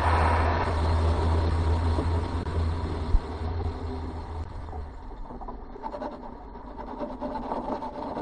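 Rocket in powered ascent heard from its own airframe: a steady low rumble with rushing noise that fades away over the first five seconds. A single sharp knock comes about three seconds in, and a quieter, rougher rattle follows.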